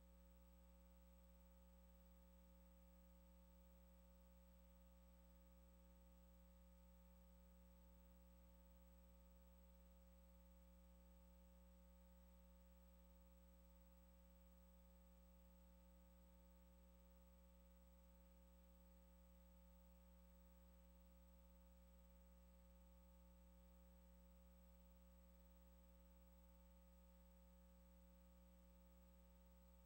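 Near silence with a faint, steady low hum that does not change.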